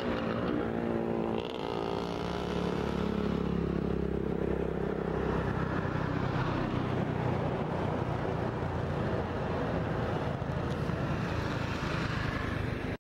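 Motorcycle engine running under way, mixed with steady road and wind noise. It cuts off suddenly at the end.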